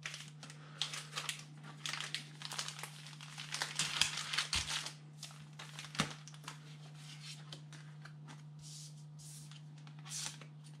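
Pokémon trading cards and crinkly plastic packaging being handled and pushed around on a wooden desk: busy rustling and crinkling for the first few seconds, then sparser shuffling with a sharp tap about six seconds in. A steady low hum runs underneath.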